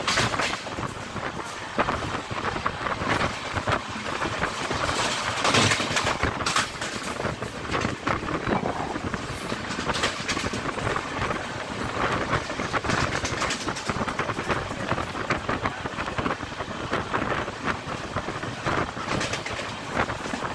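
A moving passenger train heard from inside the coach at an open window: a steady rumble and rattle of the wheels on the track, with many irregular clicks.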